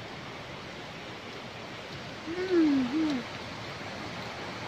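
Steady rush of running water from a stream or water spouts. About two seconds in, a short voice-like call dips and rises in pitch for about a second.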